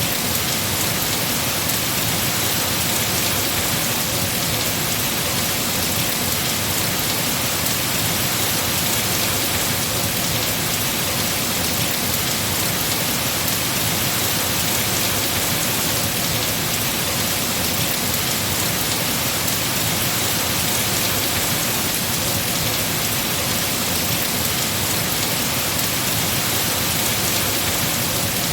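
Heavy rain falling on trees, a steady, unbroken hiss.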